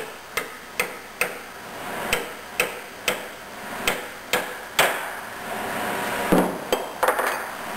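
Brass-headed hammer tapping a seal-installer driver to seat a Torrington bearing into an OMC Cobra lower-unit bearing carrier: about ten sharp metallic taps in short runs of three or four, two or three a second. A few more knocks come near the end.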